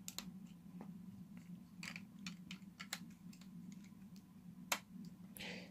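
Faint, scattered clicks and taps of plastic Lego bricks being handled and snapped back together as a brick-built model locomotive body is reassembled, with one sharper click near the end. A low steady hum runs underneath.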